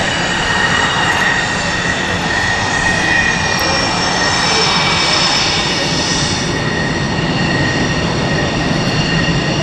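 F/A-18 Hornet's twin General Electric F404 jet engines running at taxi power: a loud, steady roar with high whistling tones that drift slightly downward.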